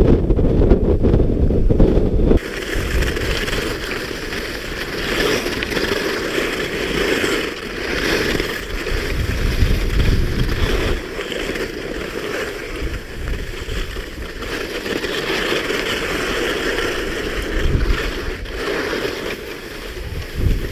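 Wind buffeting the GoPro's microphone as a skier moves downhill. About two seconds in, the sound changes abruptly to skis hissing and scraping over hard-packed, tracked snow, with lighter wind noise underneath.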